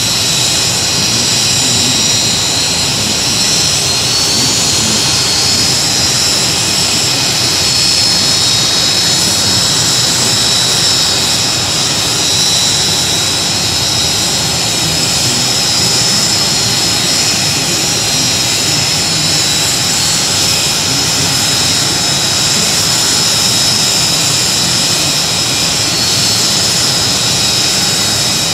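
Aircraft turbine engine running steadily and loud, a high whine over a dull rumble.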